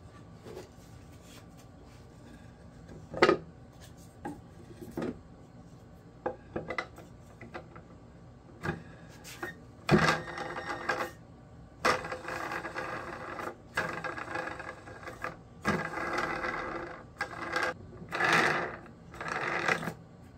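Wooden rings and discs knocked and set down on a plywood glue-up jig, with a sharp knock about three seconds in and another at about ten seconds. After that come several longer stretches of wood sliding and rubbing on wood as the parts are pressed into place.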